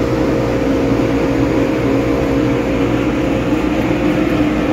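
Dust-extraction system's blower running with a loud, steady hum, drawing air and dust through the hood over a coffee dumping grate.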